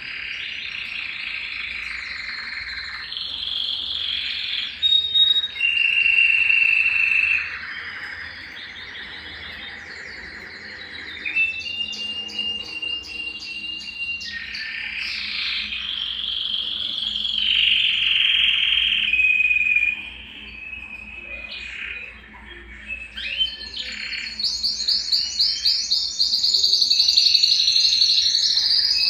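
Domestic canary (Belgian canary) singing a long, unbroken song of rolling trills and held whistled notes, changing phrase every second or two. The song ends in a faster, higher and louder trill over the last few seconds.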